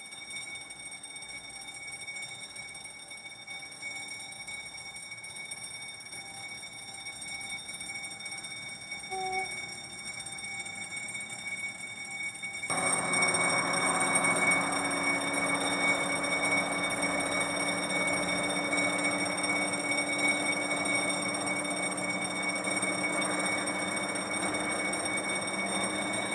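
D9E-class diesel locomotive approaching with a ballast train, its engine drone and running noise coming in suddenly about halfway through and holding steady to the end. Before that only faint steady high-pitched tones are heard.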